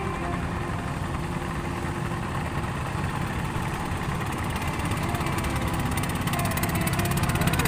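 A small engine running steadily, getting a little louder near the end.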